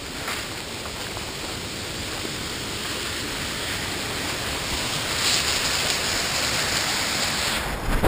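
Steady rushing of a small forest waterfall, growing gradually louder over the seconds and brighter near the end.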